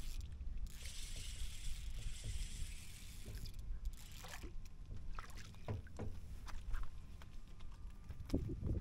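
Spinning reel being wound in against a hooked whiting, a light mechanical hiss for the first few seconds, over a steady low rumble of wind on the microphone and water against a small boat's hull. After that come scattered light clicks and knocks from handling the rod and line.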